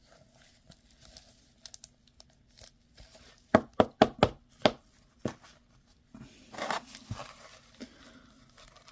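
Plastic packaging crinkling as it is handled, with a quick run of sharp crackles a few seconds in and a softer rustle near the end.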